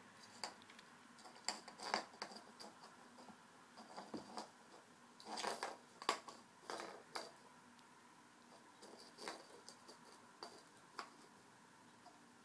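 A kitten batting and pouncing on a toy whistle on a string across a wooden floor: irregular light taps and scrapes of paws and the toy on the floor, with a busier flurry about halfway through.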